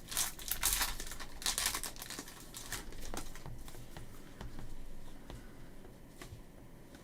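A foil trading-card pack wrapper crinkling as it is torn open, loudest in the first two seconds. After that come fainter rustling and light ticks as the cards are handled.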